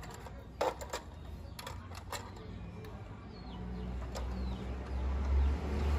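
Quiet background: a few light clicks in the first two seconds, two short, faint, falling bird chirps about halfway through, and a low rumble that builds toward the end.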